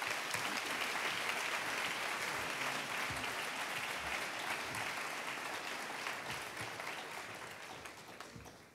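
An audience applauding, steady at first and dying away near the end.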